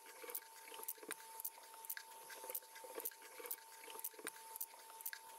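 Faint, quick taps and handling sounds about twice a second: small blocks being nudged across paper and a smartphone's touchscreen being tapped to capture stop-motion frames. A faint steady tone runs underneath.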